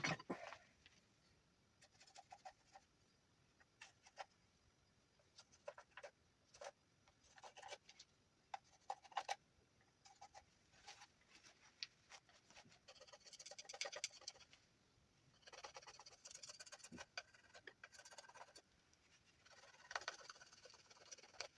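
Knife whittling juniper wood, quiet: scattered light clicks and short scraping shaving strokes, with a few longer scrapes of about a second near the middle and end.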